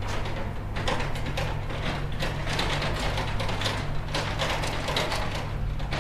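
Bulldozer working: a steady engine drone with many irregular metallic clanks and scrapes.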